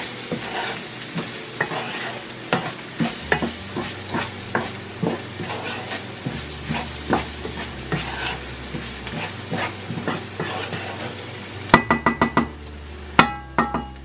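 Wooden spoon stirring and scraping precooked rice as it fries in an aluminium pot, a steady sizzle under frequent irregular scrapes. Near the end, two quick runs of sharp knocks with a short metallic ring as the spoon strikes the pot.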